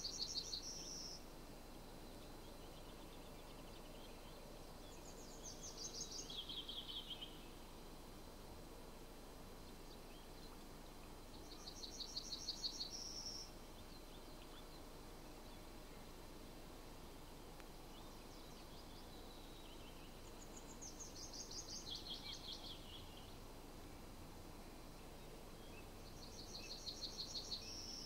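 Songbirds singing in the woods: short trilled phrases of rapid repeated notes, about one every six or seven seconds. Some phrases stay level and end on a higher note, others fall in pitch.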